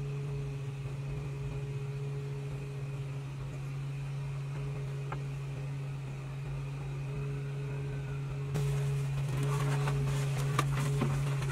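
A steady low mechanical hum throughout. In the last few seconds there is rustling and light clatter from a cardboard box being handled and opened, with bubble wrap inside.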